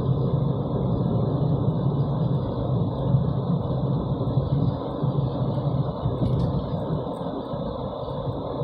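Steady low rumble of a car driving, heard from inside the cabin: engine and road noise, with a faint steady high hiss.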